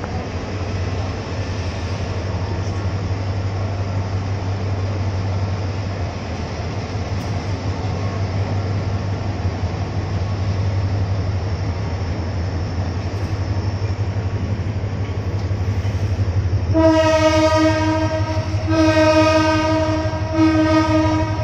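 Bangladesh Railway diesel locomotive running with a steady low engine drone as it pulls its train out, then sounding its horn in three steady-pitched blasts near the end, the first two long and the third short; the horn is the loudest sound.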